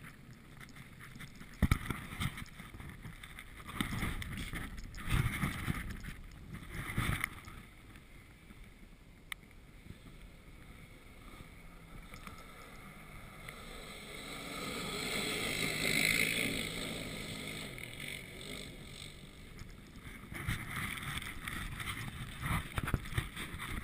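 Quad bike (ATV) engine heard at a distance, building to a peak about two-thirds of the way through and fading away as it passes, with gusts of wind buffeting the microphone early on and near the end.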